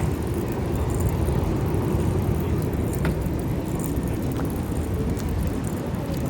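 Wind buffeting the microphone: a steady, wavering low rumble.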